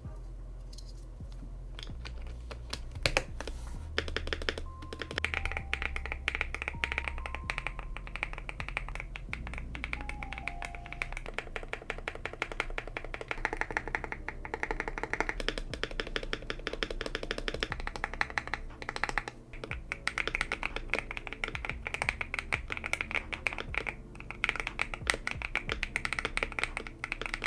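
Fast typing on an Epomaker TK68 mechanical keyboard with stock switches, tape-modded and foam-filled inside and fitted with POM jelly keycaps, over background music. The keystrokes come thick and fast from about three seconds in.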